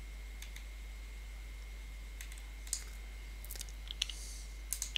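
A few light, scattered clicks of a computer mouse and keyboard, over a steady low hum and a faint steady high whine.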